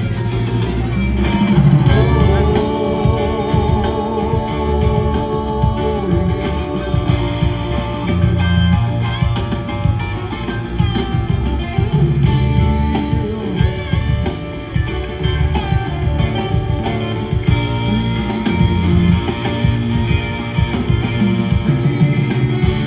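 A live rock band playing through a concert sound system, heard from the crowd: electric guitar leads over bass and drums, with held, wavering guitar notes a few seconds long about a second in.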